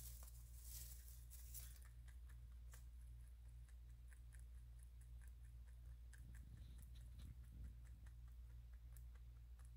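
A rabbit chewing hay: faint, quick crunches about three times a second, with a rustle of hay in the first two seconds, over a low steady hum.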